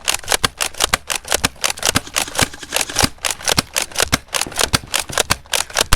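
Rapid airsoft gunfire: a steady stream of sharp cracks, several a second, stopping near the end.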